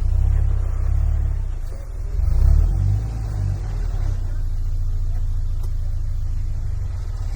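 Off-road vehicle engine running at low revs with a deep rumble, swelling briefly about two and a half seconds in.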